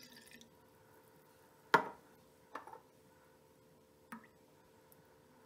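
A thin stream of water trickling into a small metal pot of milk at the very start. About two seconds in, a sharp knock of a glass tea glass set down on a hard tabletop, the loudest sound. Then two lighter clinks of glassware.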